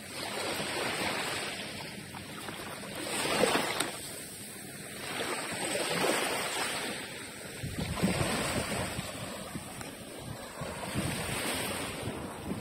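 Small waves washing up onto a sandy beach, the surf swelling and easing about every two and a half seconds, with wind rumbling on the microphone in the second half.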